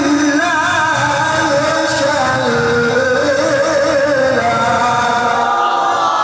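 Male qari reciting the Quran in melodic tilawah style: one voice holding a long unbroken phrase, its pitch wavering and gliding in ornaments.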